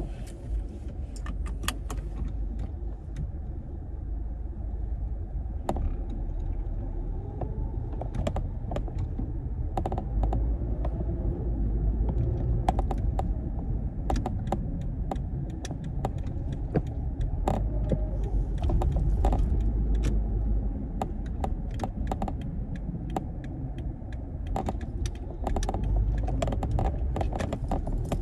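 Low, steady cabin rumble of a 2012 Toyota RAV4 under way, with irregular light clicks and jingling rattles throughout.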